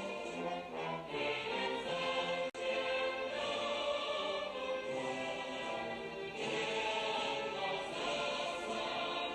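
Music with choir-like singing holding long notes, with a momentary break about two and a half seconds in.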